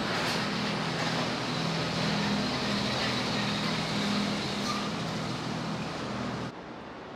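Steady drone of a large engine running, a low hum under a broad hiss, which cuts off suddenly near the end.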